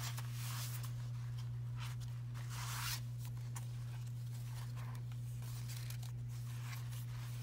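Paper and card rustling and sliding as hands smooth down and open the pages of a handmade file-folder journal, in irregular bursts, over a steady low hum.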